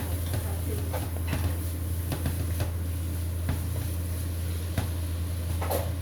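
Stir-frying: a spatula clicking and scraping against a wok in short irregular knocks, over a steady low hum.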